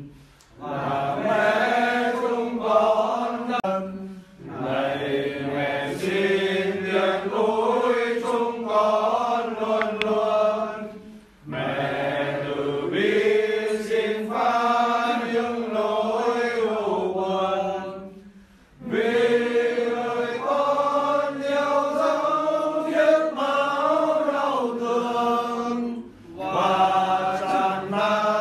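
A Vietnamese Catholic hymn to the Virgin Mary, sung in long held phrases with short pauses for breath between them.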